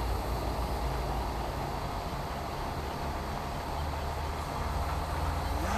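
Steady low rumble and hiss, wind buffeting the microphone beside a rippling pond. Near the end, the RC jet boat's brushless electric motor starts a rising whine as it spools up.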